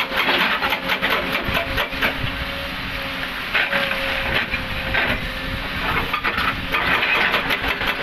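Komatsu PC200 excavator's hydraulic rock breaker hammering rapidly on rock, over the excavator's running diesel engine.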